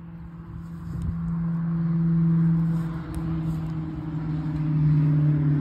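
An engine running with a steady low hum, growing louder to a peak about two seconds in, easing off, then swelling again near the end.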